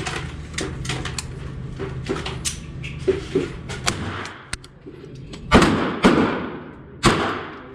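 Three gunshots from a pistol, the first two about half a second apart and the third a second later, each with an echoing tail. Before them come small clicks and knocks of gun handling.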